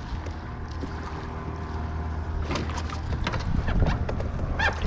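Wind buffeting the microphone over water moving against a kayak hull, with scattered clicks and knocks from the second half on as fishing gear and the kayak are handled.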